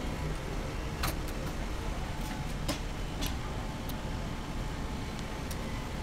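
Steady low background rumble and hiss of a shop interior, with a handful of light clicks and taps during the first few seconds.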